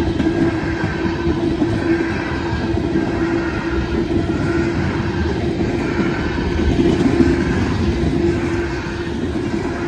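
Tank cars of a freight oil train rolling past at a grade crossing: steady, continuous noise of steel wheels on the rails, with a constant ringing tone running through it.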